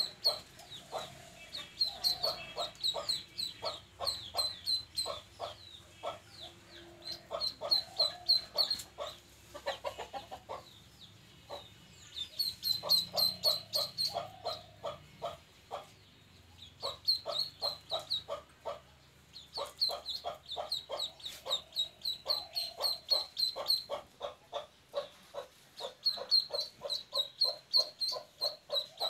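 Duckling peeping in quick runs of short, high, falling chirps, mixed with rapid lower calls at several a second. The calls stop and start again in bursts.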